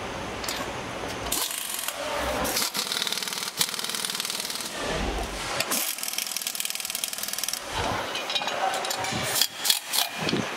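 Hand tools fastening bolts and screws on a motorcycle's chain cover and engine side cover: runs of rapid clicking and scraping, then a few sharp metal knocks near the end.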